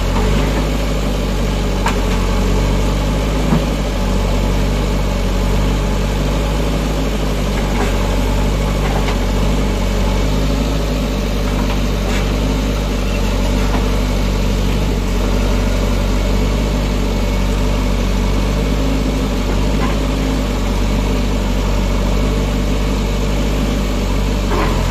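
JCB backhoe loader's diesel engine running steadily while the backhoe arm breaks down a mud-brick wall, with a few light knocks, one about three and a half seconds in.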